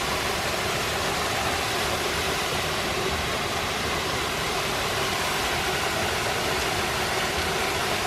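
Small forest waterfall pouring down a rock face: a steady, even rush of falling water.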